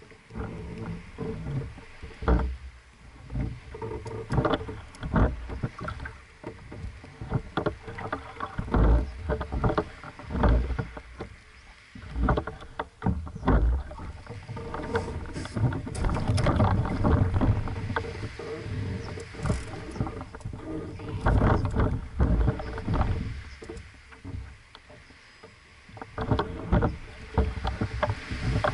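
Water lapping and slapping against the hull of a small single-handed sailboat moving slowly, in irregular splashes and knocks, louder in a few stretches.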